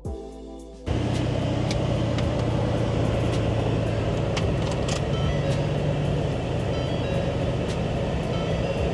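Ford F-250 pickup's engine idling steadily, a low even hum. The sound is cut out for about the first second.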